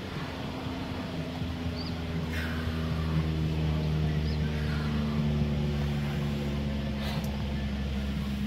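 A motor vehicle's engine running steadily with a low hum, its pitch holding level. A few short high chirps come in over it.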